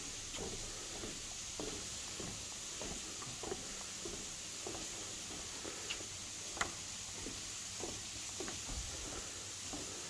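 Footsteps on wooden decking and stairs at a steady walking pace, about three steps every two seconds, with one sharper knock about two-thirds of the way through. A steady high hiss runs underneath.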